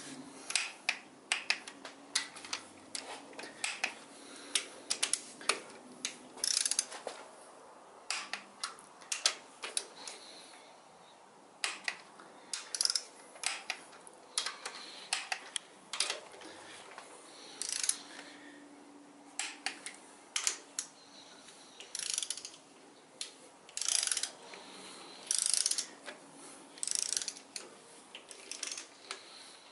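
Ratchet head of a torque wrench clicking in short, irregular bursts of strokes as rocker arm bolts on a 6.7 Cummins cylinder head are run down and tightened.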